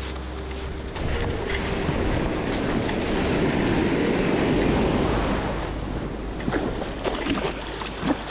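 Ocean surf washing over a sandy beach's shallows, with wind rumbling on the microphone. The wash swells through the middle and eases off toward the end.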